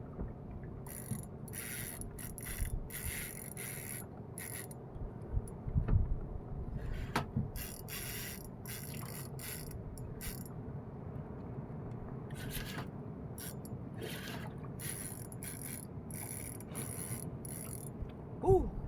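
Fishing reel working in repeated short spurts of ratcheting and whirring while a hooked fish is fought, with a low steady rumble underneath.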